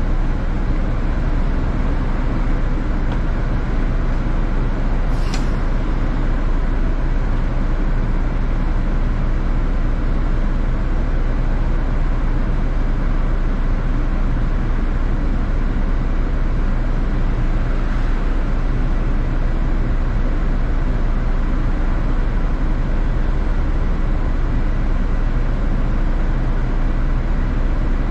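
City bus running along the road, a steady engine and road rumble heard from inside the bus, with one brief sharp high sound about five seconds in.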